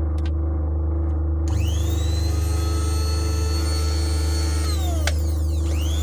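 Electric blade coffee grinder's motor (Sencor SCG 1050BK) whirring up to speed about a second and a half in and running steadily, over a low hum. It winds down near five seconds and starts up again at the end. The motor, freed from its jam and oiled, now spins freely.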